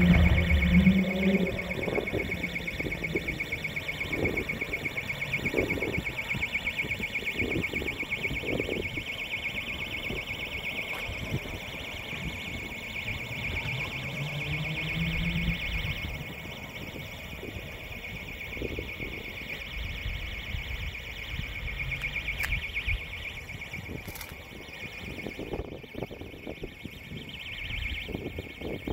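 An alarm bell ringing continuously with a fast, even pulsing tone, with intermittent low rumbling underneath.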